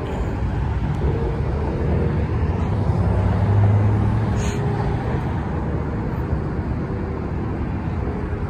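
Engines and exhausts of vehicles driving past, a steady low rumble that swells about three to four seconds in as a pickup truck goes by.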